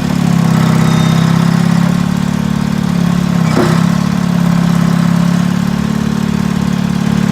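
John Deere 440 industrial crawler tractor's General Motors diesel engine running steadily, with a short burst of noise about three and a half seconds in.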